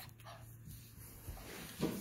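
A puppy gives one short whimper near the end, after a stretch of faint scuffling noises.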